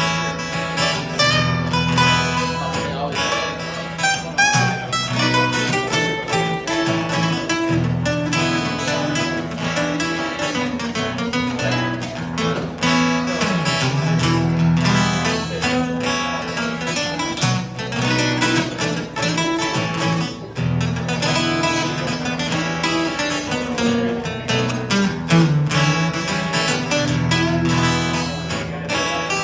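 Acoustic guitar playing an instrumental passage: quick picked melody notes over sustained bass notes that change every few seconds.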